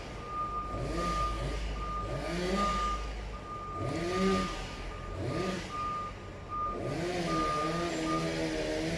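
Heavy construction vehicle's reversing alarm beeping about twice a second, stopping near the end. Under it an engine revs up and down several times as the machine manoeuvres.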